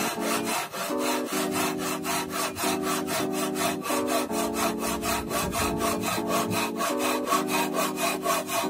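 Japanese pull saw cutting across a wooden board, with quick, even, rhythmic rasping strokes.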